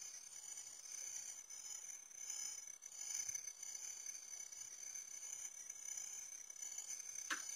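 Steady high-pitched insect chorus buzzing in the marsh grass, with one short sharp click near the end.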